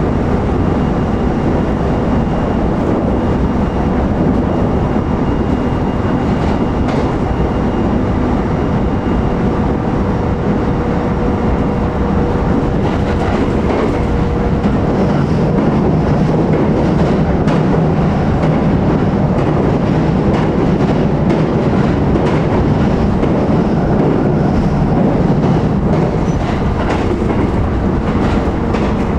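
Running noise inside a JR E129 series electric motor car at steady speed: a dense rumble of wheels on rail with faint clacks over rail joints and a thin steady humming tone.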